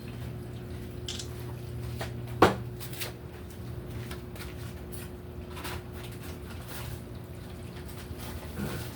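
Glass Mason jars and brine being handled on a kitchen counter: scattered light knocks and one sharp knock about two and a half seconds in, over a steady low hum.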